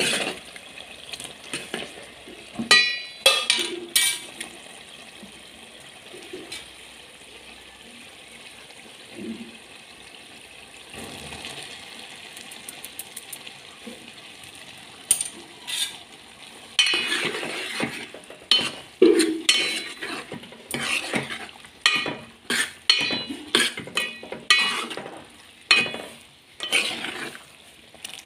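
A spoon stirs and scrapes in a metal pan of sizzling tomato curry. A steady sizzle fills the middle stretch. In the second half the spoon makes a quick run of scraping strokes against the pan as sprouts are mixed in.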